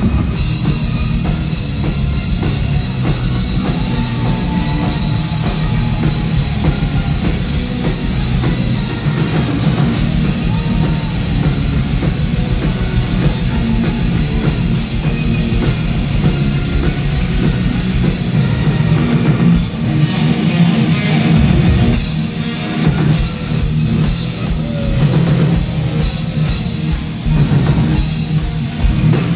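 Symphonic metal band playing live with an orchestra: drum kit, bass guitar and a string section, loud through the PA. The drums and cymbals drop out briefly about twenty seconds in.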